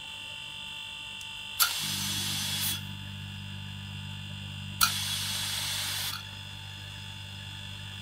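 Hermetic refrigerator compressor running as a vacuum pump at its maximum vacuum, humming very quietly and steadily; the hum grows a little stronger about two seconds in. Twice there is a short hiss that starts with a click, once about a second and a half in and once about five seconds in.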